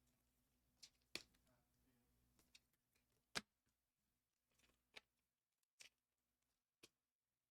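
Near silence, broken by a handful of faint sharp clicks and taps from trading cards and packs being handled.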